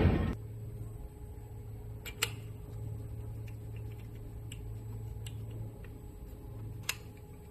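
A loud drum-like hit ending a passage of music at the very start, then a low steady hum with a few faint, sharp clicks spaced a second or two apart.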